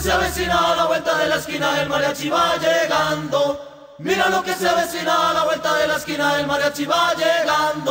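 Latin party song playing, a stretch of group voices chanting with little instrumental backing. The sound dips sharply for a moment about halfway through, then comes back.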